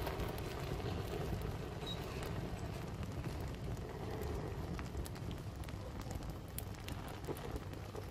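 Glued bundle of matchsticks burning, with scattered small crackles and pops as match heads catch, over a steady low rumble.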